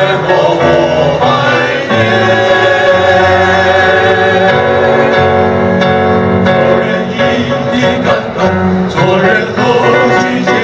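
A male vocal quintet singing in harmony through microphones, with electronic keyboard accompaniment; the voices hold long chords through the middle.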